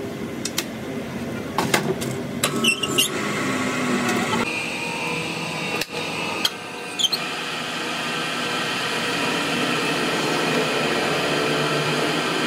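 Metal lathe running, its chuck spinning a steel axle shaft with a steady hum. Before it gets going there are a few sharp metallic clicks and taps as the part is handled, and two brief high squeaks.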